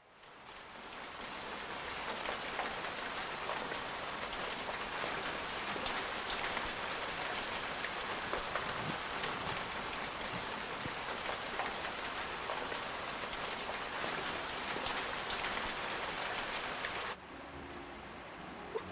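Heavy rain falling, a dense steady hiss with separate drops ticking through it; it fades in at the start and drops off suddenly near the end to a much quieter background.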